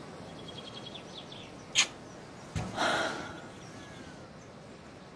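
Small birds chirping over steady outdoor background noise, with a short, sharp hiss a little under two seconds in and a brief breathy rush of noise about a second later.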